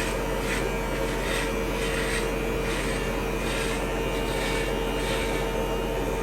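Manscaped Lawnmower 2.0 electric body-hair trimmer running with a steady hum, its blades rasping through hair in repeated short strokes about every two-thirds of a second.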